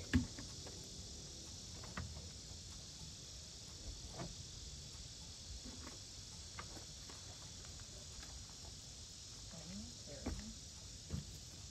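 Faint, steady insect chorus from summer woods, with a few scattered knocks and thumps as a plastic trash can is set down on gravel and the wooden shed doors are opened; the loudest thump comes just after the start.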